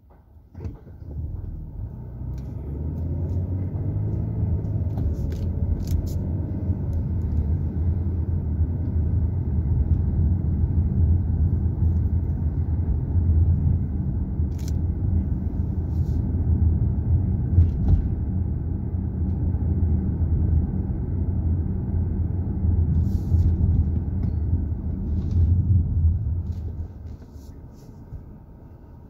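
Car's engine and tyre noise heard from inside the cabin, a steady low rumble as the car pulls away from a stop, drives along, and slows to a stop again near the end.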